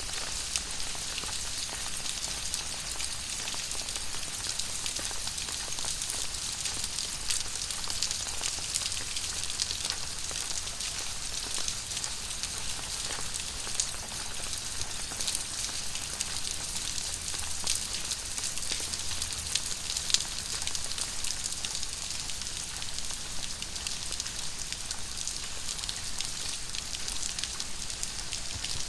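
Very heavy tropical rain pouring steadily: a dense, even hiss full of countless individual drop ticks.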